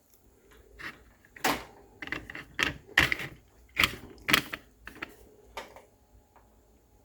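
Irregular sharp clicks and clacks, about a dozen over five seconds, from small hardware being handled: a screw, nut and plastic wall plate being fitted together by hand.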